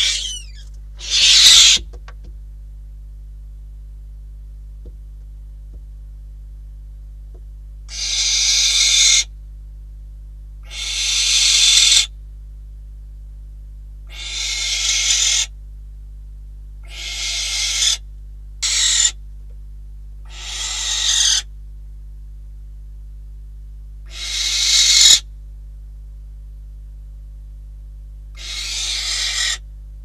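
Barn owl giving harsh, rasping hissing screeches of about a second each, each swelling in loudness, about nine times with pauses of a few seconds between. A steady low hum runs underneath.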